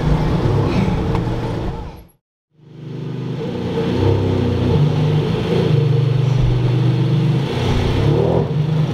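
Straight-piped Ferrari Enzo's V12 running at low revs as the car drives slowly past, with slight rises and falls in pitch. The sound cuts out for about half a second a little after two seconds in.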